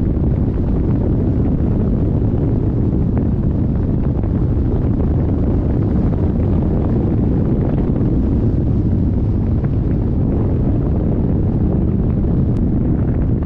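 Steady, loud wind rumble from air rushing over the microphone of a camera mounted on a hang glider in flight.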